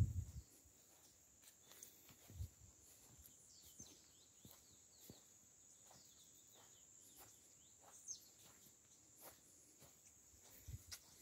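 Faint countryside ambience: many short falling bird chirps over a steady high-pitched insect drone, with scattered soft clicks.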